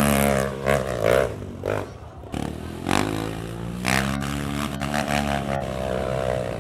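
Dirt bike engine revving up and down on a steep trail climb, its pitch rising and falling repeatedly and easing off briefly about two seconds in.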